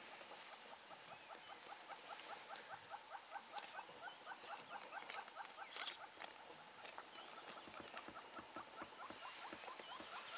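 A small animal calling in a fast, even series of short chirps, about five a second, kept up steadily for several seconds.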